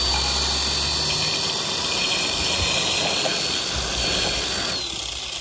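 Ryobi chainsaw with a 10-inch bar running steadily with a high whine as its chain cuts through a roll of paper-wrapped raw ground beef. The whine falls away about five seconds in as the saw is released.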